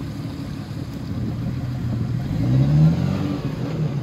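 Jeep Cherokee XJ engine working under load as the 4x4 crawls through a rocky stream ditch, revving up about two and a half seconds in and easing off again.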